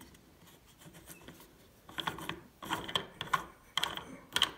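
The tool-free clamping knob on an Einhell GE-LC 36/35 Li cordless chainsaw's side cover being turned by hand with its fold-out handle to tighten the cover. Its plastic parts click in short bursts, starting about two seconds in and coming roughly twice a second.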